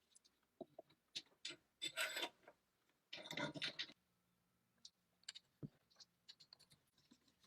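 Scattered small clicks and two short scraping rubs, the louder one about three seconds in, typical of metal parts being handled and fitted by hand during reassembly of a rifle.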